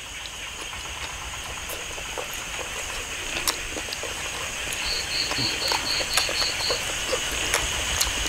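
Steady chorus of crickets and other insects, a high even buzz, with a quick run of about eight short high chirps about five seconds in and scattered light clicks.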